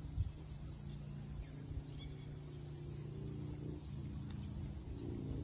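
Steady, high-pitched insect chorus, with a faint low hum underneath and one soft thump just after the start.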